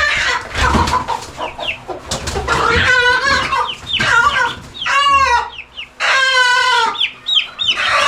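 A mother hen squawks loudly as she is caught and handled. After a second or two of scuffling come a series of harsh, pitched protest calls, several of them long and drawn out.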